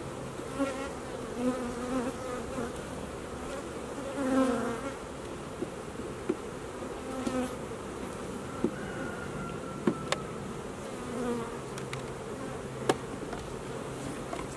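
Honey bees buzzing close around an open hive, the hum of single bees swelling and fading as they fly past. A few sharp clicks come in between as wooden frames and the hive tool knock together while the frames are pushed into place.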